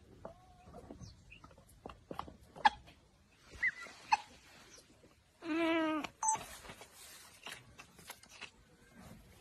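A gosling peeping a few times in short chirps, among light clicks and rustling. About halfway through comes one longer, wavering call with many overtones, the loudest sound here.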